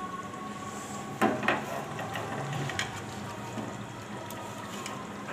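Beef stew simmering and sizzling in a metal pot on a gas stove, a steady hiss, with a couple of sharp clinks of a utensil against the pot about a second in.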